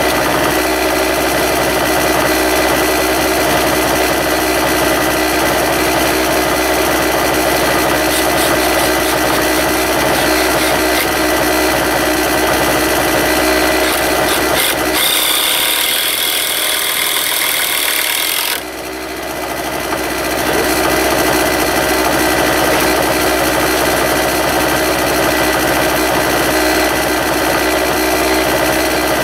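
A steady machine hum, engine-like, with several fixed tones. For a few seconds past the middle it gives way to a hiss, then the hum resumes.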